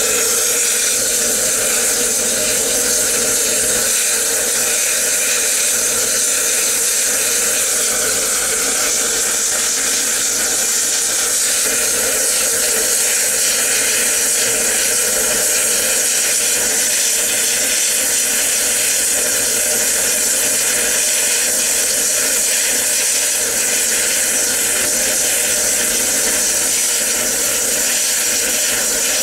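Stationary steam locomotive letting off steam: a steady, loud hiss.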